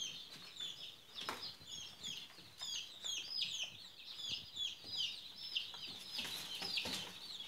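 Newly hatched chicks peeping: a steady chorus of short, high peeps that drop in pitch, several a second, with a couple of faint knocks.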